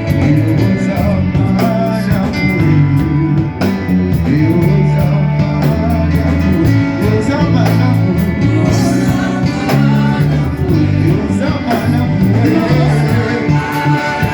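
Worship music: singing over guitar and bass with a steady beat.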